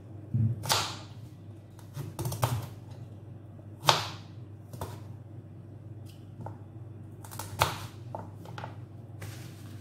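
A kitchen knife slicing a raw sweet potato into lengthwise wedges, the blade knocking on a plastic cutting board in irregular chops, the sharpest about four seconds in.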